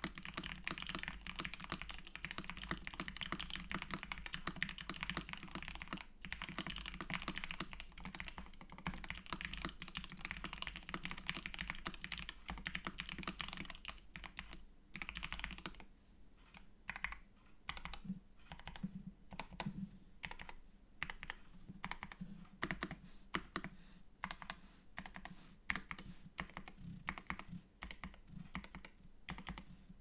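Custom mechanical keyboard being typed on: an LZ-SQ aluminium case and plate with Krytox-lubed Gateron Ink switches on 60 g springs and CRP APL keycaps. Fast continuous typing for about the first half, then slower, separate key presses.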